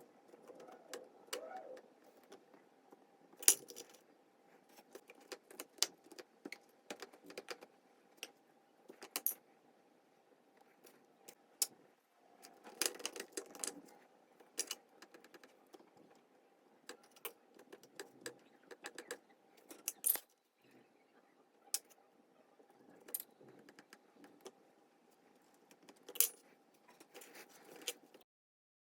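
Kitchen utensils and dishes clinking and knocking: scattered sharp metallic and ceramic clicks at irregular intervals, over a faint steady hum. The sound cuts off just before the end.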